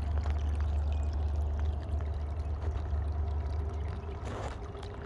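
Spring water trickling out of a riverbank and splashing down as a small waterfall, in a steady pour with a brief louder splash about four seconds in. A steady low rumble runs underneath.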